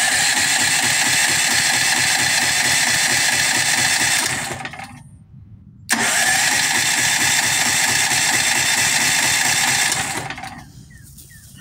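Electric starter cranking the Firman H07552 generator's 439cc OHV engine in two bursts of about four seconds each, a short pause between them, without the engine starting; the owner then realises the choke was left off.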